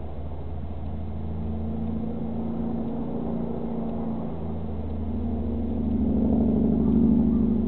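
Motorboat engine running steadily with a low hum, growing louder about six seconds in and then easing off.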